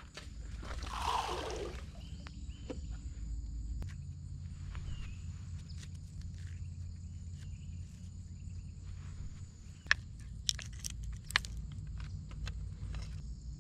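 A thrown piece of bait splashes into the river about a second in. After that there is a steady outdoor background with a thin high insect trill, and a few sharp clicks near the end from handling the fishing rod and its baitcasting reel.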